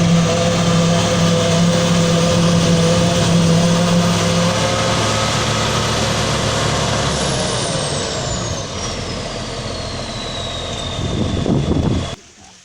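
Large engine running steadily, with a thin high whine that falls slowly in pitch through the second half; the sound cuts off abruptly near the end.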